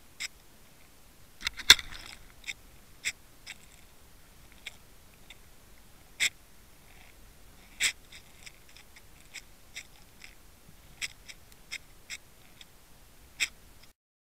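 Scattered sharp clicks and ticks, about a dozen at uneven intervals, picked up underwater by a camera towed ahead of a trolled tube-and-worm rig. The loudest comes about two seconds in. The sound cuts out to dead silence just before the end.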